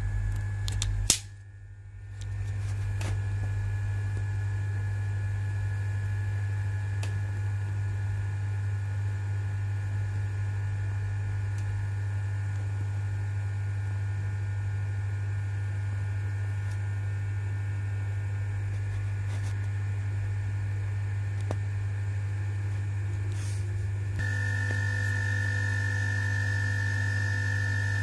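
Steady electrical mains hum with a faint high whine. There is a sharp click about a second in, and the hum fades briefly before returning. Near the end the whine steps up louder.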